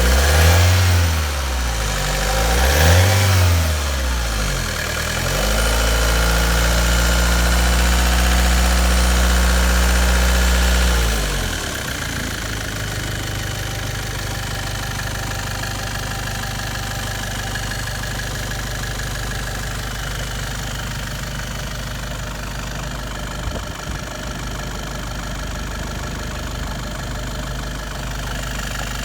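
2013 Great Wall diesel engine blipped twice, held at a raised speed for about five seconds, then dropping back to a steady idle for the rest of the time.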